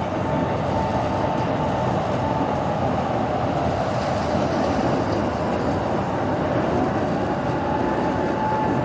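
A train running, a steady rail rumble with a faint whine that wavers in pitch.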